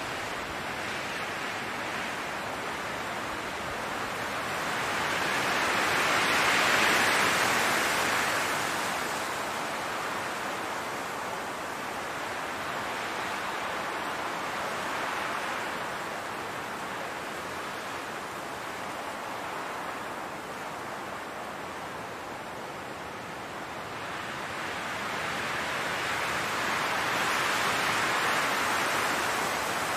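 Wind blowing through a field of grass and flowers: a steady rushing that swells into gusts, once about six seconds in and again near the end.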